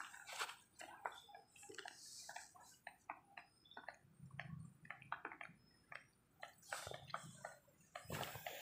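Faint, irregular small clicks and crackles of a young tabby kitten chewing food.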